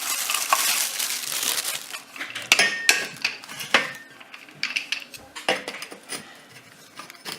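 Wheeled end pieces being slid and pushed onto the legs of a projector stand: a scraping, crackling rub for about two seconds, then scattered sharp clicks and clinks as the parts are handled and seated.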